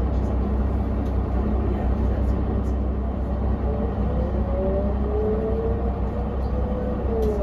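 Cabin sound of a 2001 Mercedes-Benz O405NH diesel bus on the move: a steady low engine and road rumble, with a gear whine from the ZF automatic gearbox and hub-reduction axle that rises in pitch from about halfway through and falls away near the end.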